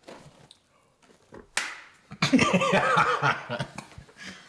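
Light handling clicks and one sharp slap about a second and a half in as a zipped keyboard case is opened, then a long, loud exclamation of "wow".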